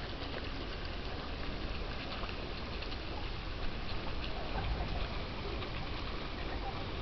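Water from a flat stone slab fountain, splashing and trickling steadily as a small jet bubbles up and a thin sheet of water runs over the stone, with a low rumble underneath.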